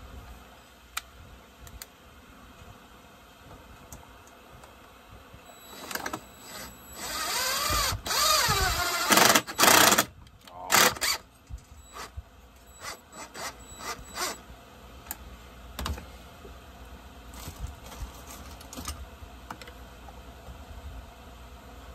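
Cordless power driver running on a fastener in a chainsaw's housing, its motor whining and wavering in speed for a few seconds about midway, ending in a few short loud bursts. Scattered small clicks and knocks from handling tools and parts come before and after.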